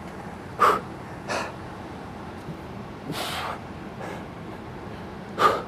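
A man's hard breathing from exertion during an ab workout: about four short, forceful puffs of breath, two of them sharp and loud, one near the start and one near the end.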